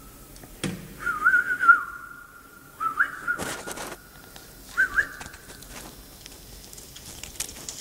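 A person whistling three times, each whistle warbling at first and then held on one steady high note, the kind of whistle used to call a dog.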